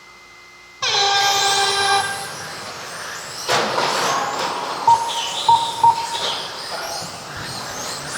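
A start tone sounds about a second in and holds for about a second, signalling the start of a radio-controlled car race. A couple of seconds later the RC cars' motors start whining as they race off, with several short beeps.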